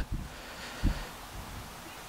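Quiet handling of a stack of paper trading cards: a faint rustle as the cards are slid through the hands, with one soft low thump a little under a second in.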